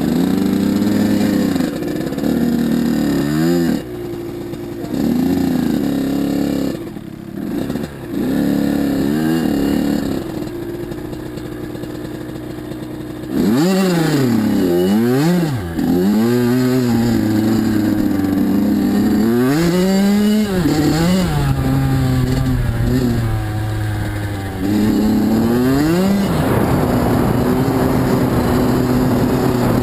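Kawasaki KX85 two-stroke single-cylinder dirt bike engine running, its pitch rising and falling several times as the throttle is opened and closed, with steadier stretches between.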